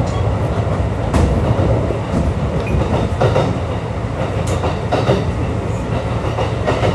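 Kintetsu 3200 series electric train heard from inside at the car end while running at speed: a steady rumble of wheels on rail with several irregular clicks over rail joints, under the hum of the car's air conditioning.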